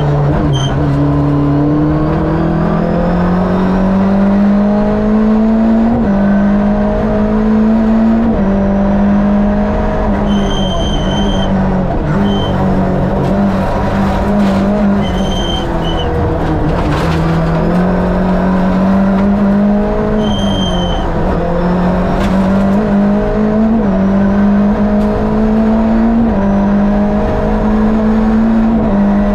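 Fiat 2-litre twin-cam eight-valve four-cylinder engine of a Lada VFTS rally car driven hard, heard from inside the car. It revs up and drops back again and again as it goes through the gears. A short, high steady tone sounds several times.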